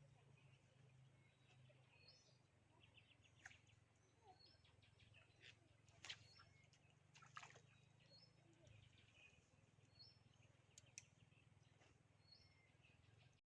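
Faint birdsong: a bird repeats the same short, high call about every second and a half. A few sharp clicks and a low hum sit underneath, and the sound cuts off to silence just before the end.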